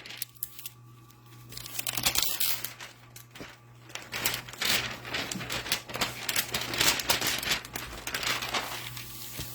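A rolled diamond-painting canvas crinkling and rustling as it is handled and bent back to straighten it out. The rustling is light at first and picks up about two seconds in.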